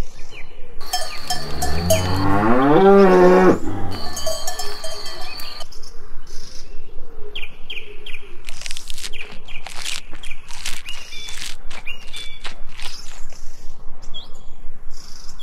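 A cow-moo sound effect: one long, low moo that rises and then falls in pitch, with a cowbell clanking, about a second in. For the rest of the time, scattered short clicks and brief chirps follow.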